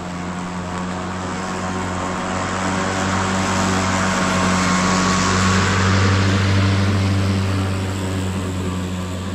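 EGO cordless battery-powered walk-behind lawn mower, the lower-power single-blade model, running as it cuts grass: a steady electric motor and blade hum over a whirring hiss. It grows louder as the mower passes close, loudest about six seconds in, then eases off.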